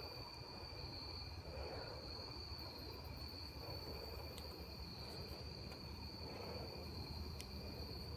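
Crickets chirping in a steady night chorus, a faint continuous high trill, with a couple of faint ticks.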